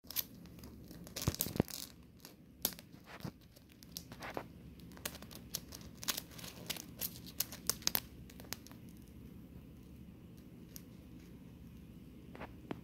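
Scratching and clicking of two large stag beetles, Dorcus titanus titanus and Dorcus antaeus, grappling on a looped carpet as their claws catch and pull at the pile. There is an irregular run of sharp scrapes and clicks for about the first nine seconds, after which it thins to near stillness with one last click near the end.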